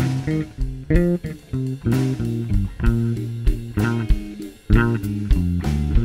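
Electric bass guitar playing a line of plucked notes in a live blues band's instrumental break, with no singing.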